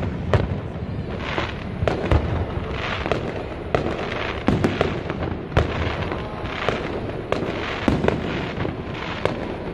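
Fireworks display: aerial shells bursting in a steady string of sharp bangs, about one and a half a second, with crackling in between.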